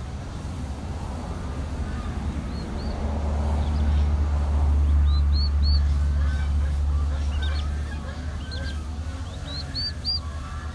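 Poultry chicks peeping: short, high, rising calls in quick clusters of two or three, over a steady low rumble that swells in the middle.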